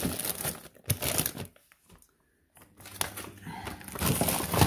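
Plastic bags of frozen food crinkling and rustling as they are handled and shifted in a freezer drawer, with a few sharp knocks and a brief pause about two seconds in.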